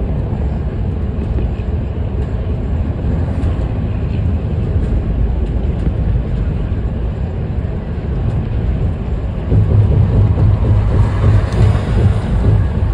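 Steady low rumble of a bus in motion, heard from inside the passenger cabin: engine and road noise, growing louder about ten seconds in.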